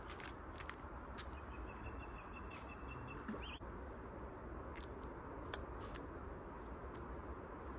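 Wild birds chirping and calling, including one thin, high, held call about a second in, over a steady background hiss, with a few faint clicks.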